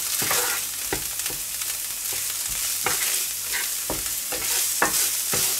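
Chopped onion and cabbage sizzling steadily in clarified butter in a frying pan, with a wooden spatula stirring and scraping across the pan in a few irregular strokes.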